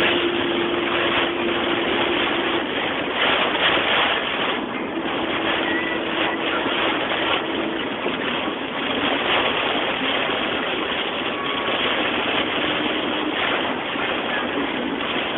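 Heavy rain pelting a car's roof and windshield from inside the moving car, mixed with the hiss of tyres on a flooded road; a steady rushing noise, with a faint hum coming and going.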